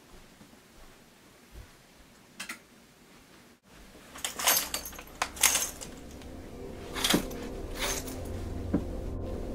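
Curtains being drawn shut: the rings slide and scrape along the curtain rod in several quick pulls, starting about four seconds in.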